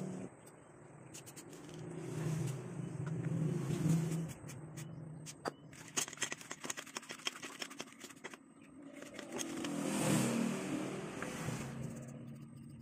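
Vehicles passing by, their engines swelling up and fading away twice, and in between a quick run of small clicks and scrapes from hands working the opened seat belt retractor's parts.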